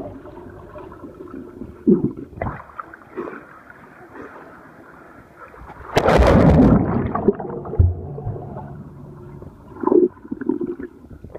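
Muffled underwater sound in a swimming pool, heard by a camera below the surface: low gurgling and sloshing water with a few short bubbly bursts, and a louder rush of water about six seconds in.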